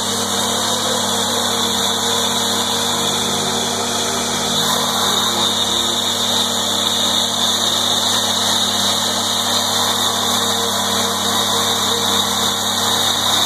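Reverse osmosis plant's high-pressure pump running steadily: a constant mechanical hum with an even hiss above it.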